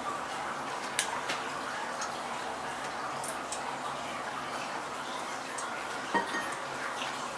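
A few light clicks and clinks of kitchen utensils against dishes, over a steady background hiss.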